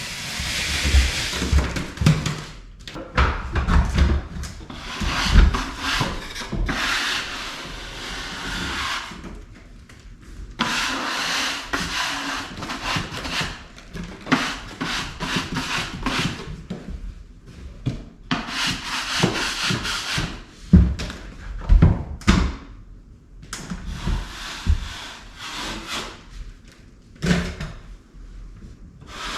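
A scraper dragged across a dampened popcorn ceiling, stripping off the texture in repeated long strokes with short pauses between them. A few dull thumps come in between the strokes.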